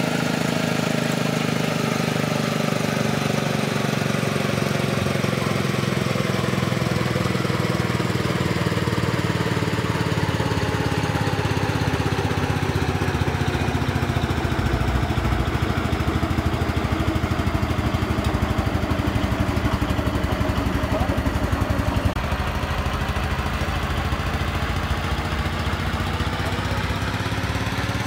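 An engine running steadily, its pitch sagging slowly and then rising again.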